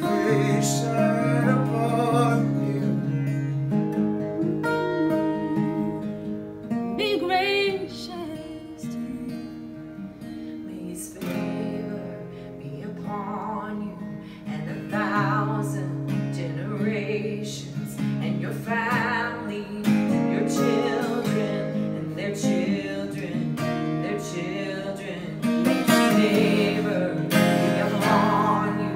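Acoustic guitar strumming chords while women sing a slow worship song. The music softens in the middle and swells again near the end.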